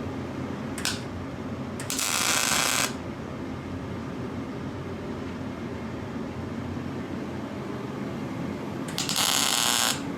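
Two short welding bursts, each about a second long, around 2 s and near the end: crackling tack welds on a 4-inch V-band flange being welded to a turbo hot side, over a steady background hum.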